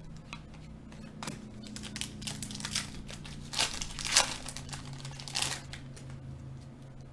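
A trading-card pack wrapper crinkling and cards being handled, in a series of short rustles spread over several seconds.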